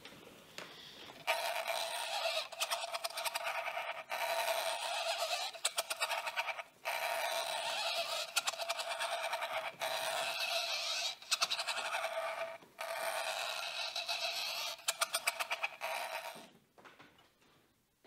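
Dry rattling and scraping of dried plant stems and seed heads as a small handmade puppet theatre is worked by hand. It comes in five spells of a few seconds each, with runs of rapid clicking.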